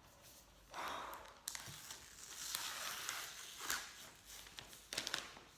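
Packaging being handled during an unboxing: rustling and crinkling of paper and wrap in two stretches, with a few sharp taps and clicks.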